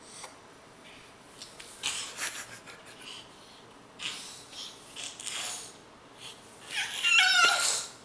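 A baby making breathy huffs and short vocal noises while crawling and rolling, then a loud, high-pitched squeal with a wavering pitch about seven seconds in.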